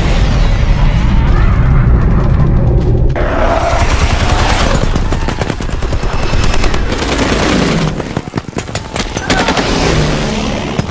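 Film battle soundtrack: a heavy low explosion rumble from an airstrike fireball, then rapid automatic machine-gun fire from about halfway on.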